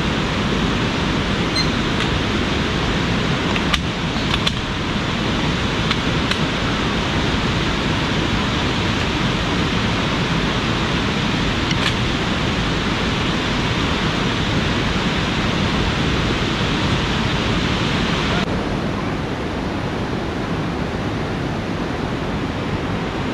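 A fast-flowing river rushing in a loud, steady hiss, with a few faint knocks. The hiss turns a little duller about eighteen seconds in.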